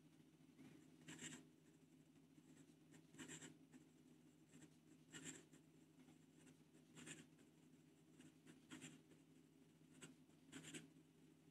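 Faint scratching of a Moonman M600S fountain pen's Bock nib on notebook paper during quick cursive writing, coming as short strokes about every one to two seconds.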